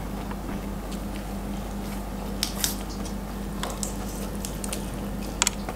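Close-up eating sounds: soft wet chewing and squishing, with a few short, sharp crisp bites scattered through. A steady low hum runs underneath.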